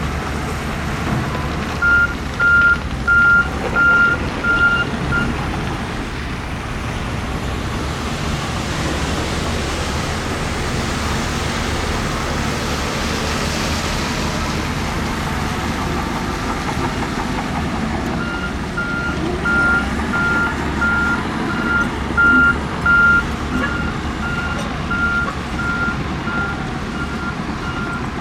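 Heavy diesel earthmoving machinery running with a steady low rumble. Over it, a backup alarm beeps on one high tone at about one and a half beeps a second. There is a short run of about six beeps a couple of seconds in, and a longer run starting about two-thirds of the way through.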